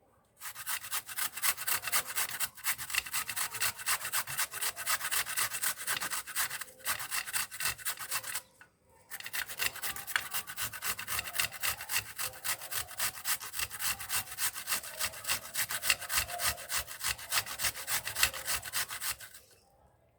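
Raw turnip being grated on a hand grater: quick, even rasping strokes, about three a second, with one short pause about halfway through, stopping just before the end.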